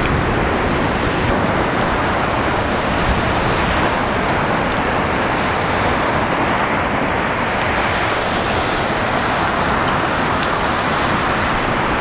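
Steady rush of ocean surf breaking on a sandy beach, mixed with wind on the microphone.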